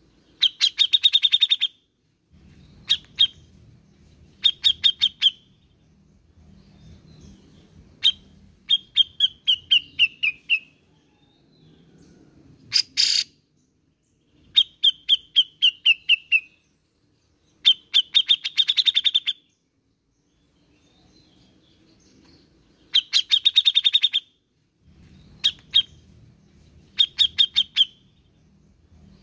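Grey-cheeked bulbul (cucak jenggot) singing: about a dozen short bursts of rapid, chattering repeated notes with pauses between them. Several of the bursts slide down in pitch.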